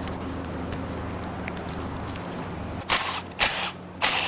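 A cordless power tool running in four short bursts of about a third of a second each, starting about three seconds in, as it works on fasteners on the engine's intake. Beneath it, shop fans keep up a steady low hum.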